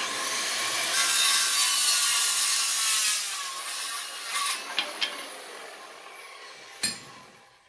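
Electric power tool cutting through an old wooden axe handle. It starts at once at full noise, then winds down with a falling whine over several seconds. A single knock comes near the end.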